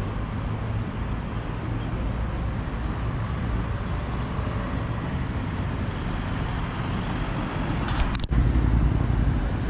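Steady road traffic noise from cars on a wide city boulevard, a low rumble heard from the sidewalk. About eight seconds in there is a sharp click and a brief dropout, and after it the rumble is louder.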